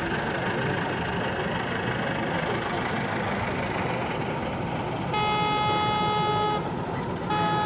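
Steady background hall noise, then a model steam locomotive's sound-unit whistle toots twice: one long toot of about a second and a half, then a short one near the end.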